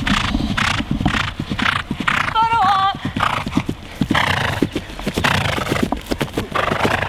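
A horse galloping over turf: steady hoofbeats with its breathing pulsing in time, about two to three strides a second, getting closer. A short wavering higher-pitched cry cuts in about two and a half seconds in.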